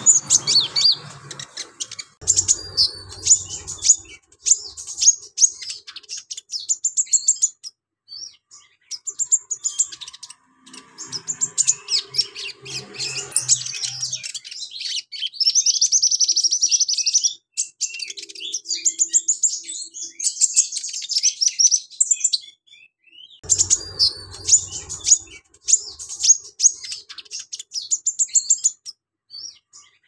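Caged male sunbird (kolibri ninja) singing busily: rapid, high-pitched chirps and twitters in phrase after phrase with short pauses. A longer, steady buzzing trill comes around the middle.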